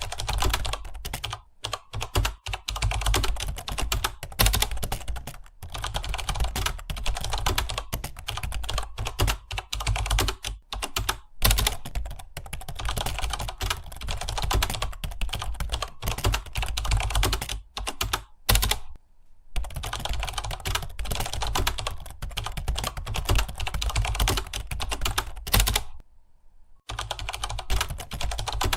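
Computer keyboard typing: rapid, continuous keystroke clicks, broken by brief pauses about two-thirds of the way through and again near the end.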